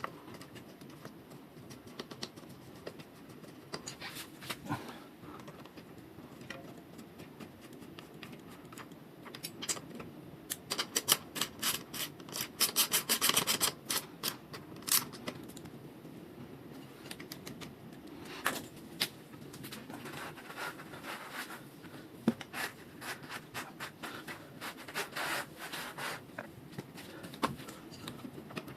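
Hands and tools working on bicycle parts: rubbing and scraping with scattered sharp clicks, and a quick run of rapid clicks about halfway through.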